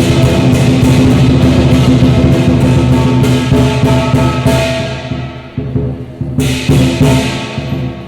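Chinese dragon dance percussion: a big drum beaten in fast, loud strokes with clashing cymbals and ringing gongs. The cymbal crashes drop away about five seconds in and come back in about a second and a half later.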